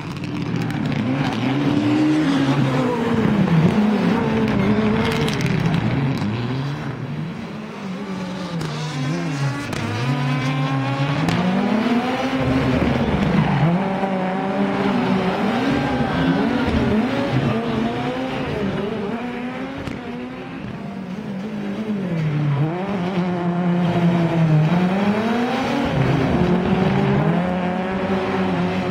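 Rally car engine revving hard, its pitch climbing and dropping again and again through gear changes and lifts off the throttle.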